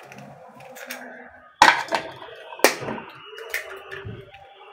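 A few sharp clicks and light taps, roughly a second apart, as a cracked egg's shell is pulled open and emptied over a plastic mixing basin.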